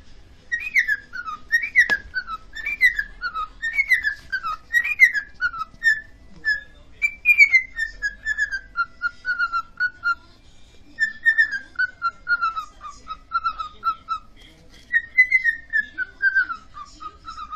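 Parrot whistling a tune: phrases of short whistled notes that step down in pitch, repeated four or five times with brief pauses between them. A single click about two seconds in.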